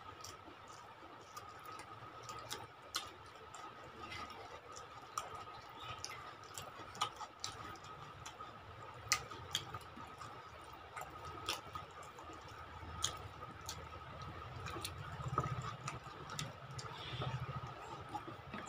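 Quiet hand-eating sounds: irregular soft clicks and smacks of chewing and of fingers working rice and curry, over a faint steady high-pitched tone.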